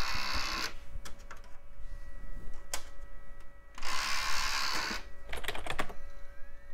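A late-1990s optical drive in an HP Pavilion 8565C reading a CD-R disc, with keyboard key taps and clicks. Two short whirring bursts and a faint steady whine come from the drive, and near the end a rising whine as the disc spins up.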